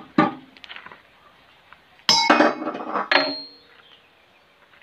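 Hammer striking a steel JCB bucket pin: a knock just after the start, then a quick run of metallic clanks about two seconds in and a last clang a second later that rings on briefly.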